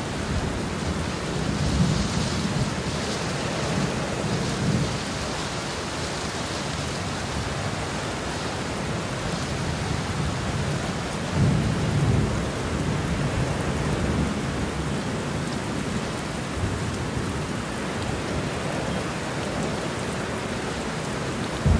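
Steady rain with low rolls of thunder, the rumbles swelling about two seconds in and again about halfway through.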